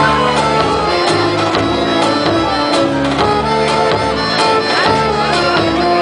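Traditional Serbian folk music of the Vranje region: a melody of held notes over a steady drum beat.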